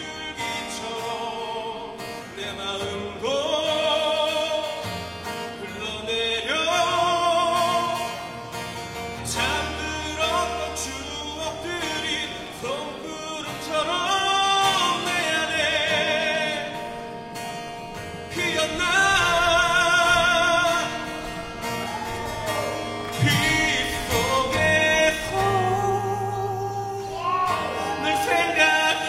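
Music with a solo singing voice, held notes with strong vibrato over sustained instrumental accompaniment.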